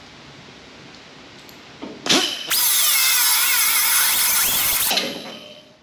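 A handheld power tool runs in one steady burst of about two and a half seconds on the Firebird's old quarter-panel sheet metal. Its whine wavers up and down in pitch as it bites, then cuts off suddenly. It is cutting through the last of the panel's hold.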